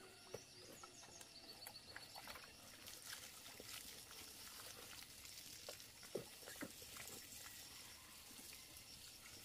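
Near silence: faint outdoor ambience with scattered light clicks and knocks, two slightly louder ones about six seconds in, and a brief run of faint high chirps early on.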